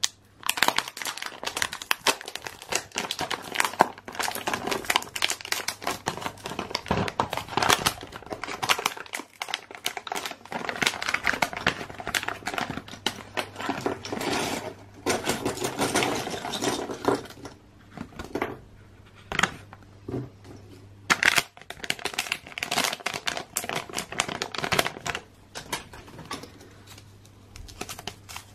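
Crinkling and rustling of a foil Playmobil Figures blind bag being torn open and handled, with a dense run of irregular crackles and small clicks.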